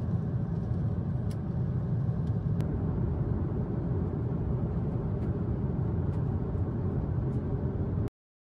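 Airliner cabin noise in flight: a steady low rumble with a few faint clicks, cutting off suddenly near the end.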